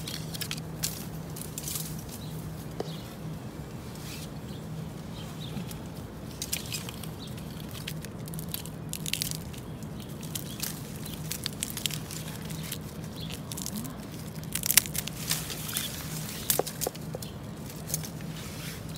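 Dry bamboo stalks and leaf litter crackling and snapping as gloved hands push through and rummage among them: scattered crisp crunches, with a cluster of louder snaps near the end, over a faint steady low hum.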